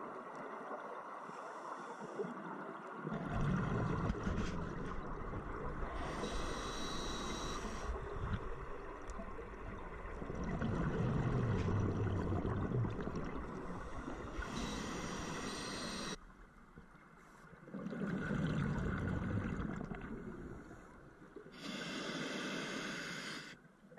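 Scuba diver breathing through a regulator underwater: three breaths, each a hissing inhale and a low, bubbling exhale.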